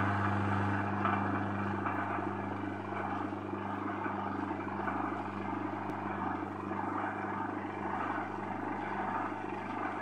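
Electric gearmotor of an underground swing-gate operator running steadily with a low hum as it drives the gate leaf closed during the control panel's travel-learning cycle.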